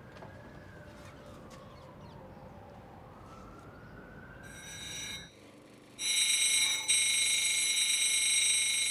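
A threaded metal rod is held against a spinning grinding wheel, throwing sparks, with a loud, steady, high-pitched grinding whine from about six seconds in. Before that a faint siren rises and falls slowly.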